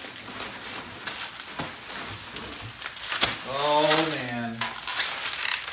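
Bubble wrap and packing paper rustling and crinkling, with sharp crackles, as a bubble-wrapped exhaust header is lifted out of a cardboard box. A man's voice sounds one drawn-out exclamation about four seconds in.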